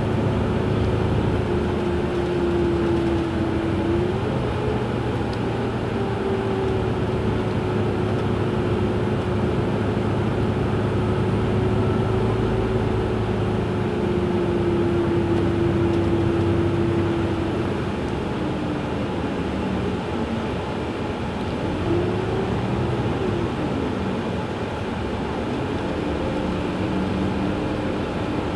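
Iveco Crossway LE CNG bus's natural-gas engine idling at a standstill, with a steady whine over the engine note that wavers and rises and falls a few times in the second half.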